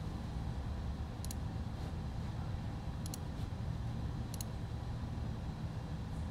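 Three faint computer-mouse clicks, the second a quick double, over a steady low hum.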